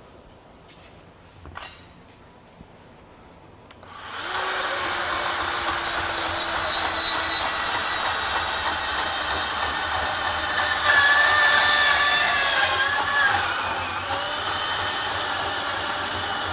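Ridgid R8604 18V cordless compact band saw, with a brushed motor and its speed dial set to 6, starts about four seconds in and cuts steadily through 2x2 square metal tubing clamped in a vise. High whining tones from the blade in the metal sound over the motor. Before it starts there is a single knock at the vise.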